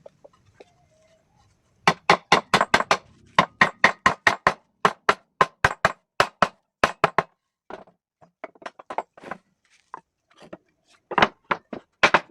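Rapid hammer blows on wood, about five a second for several seconds. They are followed by weaker, scattered taps and then another quick run of blows near the end.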